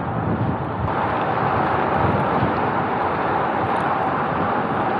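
Strong wind rushing over the microphone of a road bike riding at speed, a steady noise that gets a little louder about a second in.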